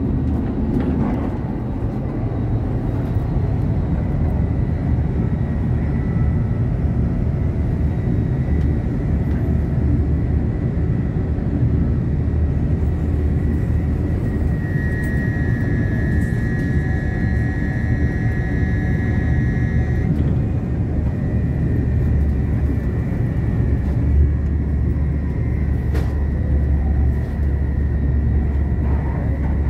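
Steady rumble of an intercity passenger train running at speed, heard from inside the carriage. A high steady whine joins in for a few seconds about halfway through.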